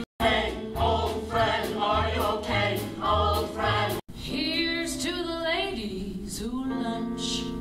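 Show-tune singing with band accompaniment: voices over a steady bass beat, then an abrupt edit about four seconds in to slower singing with long held notes.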